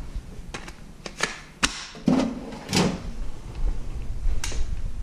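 A handful of sharp, irregularly spaced clicks and knocks: a DeWalt cordless-tool battery handled in a metal tool-chest drawer and clicked onto a cordless impact wrench.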